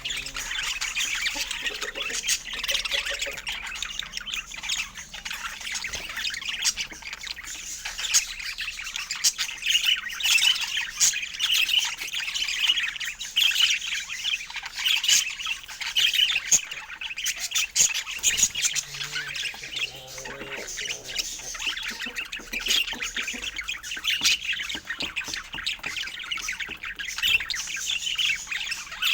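Budgerigars chattering continuously: a dense, unbroken stream of quick chirps and squawks.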